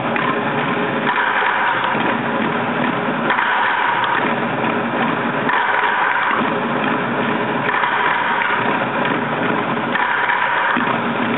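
A large group drumming together with sticks on plastic buckets: a dense, continuous mass of stick strikes whose pattern repeats about every two seconds.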